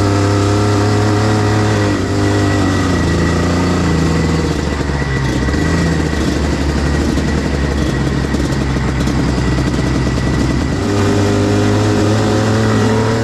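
125cc two-stroke kart engine running under throttle, its pitch falling about two seconds in and climbing again near the end as the kart eases off and accelerates.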